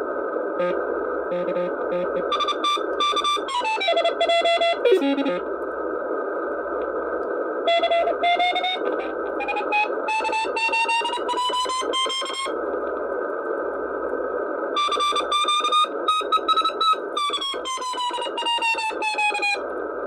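Xiegu G90 HF transceiver receiving Morse code (CW) signals on the 40 m band: a steady band hiss with beeping Morse tones keyed on and off. The beep pitch slides down, then up, then down again as the tuning knob is turned across the stations.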